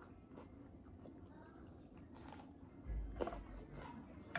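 Faint chewing and eating sounds: small soft clicks and crackles, with a low thump about three seconds in.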